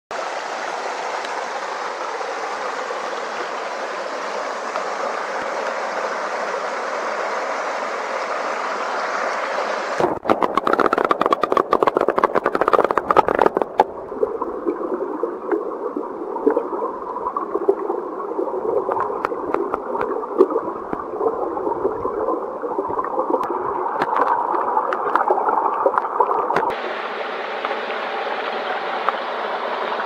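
Mountain stream water running over rocks in a steady rush. About ten seconds in, a few seconds of knocks and clatter, then the stream turns muffled and bubbling, as heard with the microphone under water. Near the end, the open rush of water returns.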